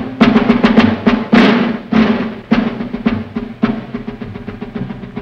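Martial orchestral film score: rapid drum strokes and timpani over low held notes, with a loud crash about a second and a half in, the drumming thinning out toward the end.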